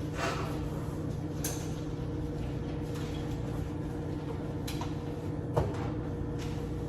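A steady low mechanical hum with a few light clicks and knocks, the loudest knock about five and a half seconds in.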